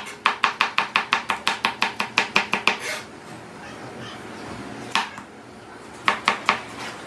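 Kitchen knife chopping green peppers on a plastic cutting board: rapid strokes, about six a second, that stop about three seconds in. After a single cut near five seconds, a quick run of cuts through a tomato comes near the end.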